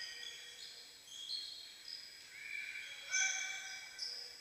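Sports shoes squeaking on the gym floor during a volleyball rally: many short, high squeals overlapping, with a louder sound about three seconds in.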